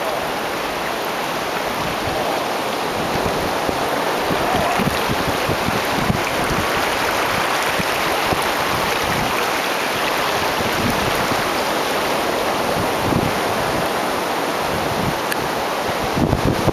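Ocean surf washing steadily, with wind buffeting the microphone in low gusts.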